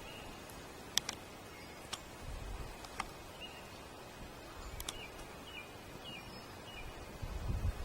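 A small bird chirping a run of short, high notes about twice a second over a faint outdoor hiss, with a few sharp clicks, the loudest about a second in.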